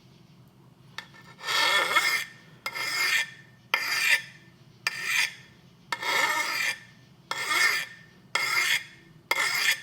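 Hand file rasping across the steel edge of an axe in about eight separate strokes, roughly one a second, working the burr back and forth after a secondary bevel has been filed on.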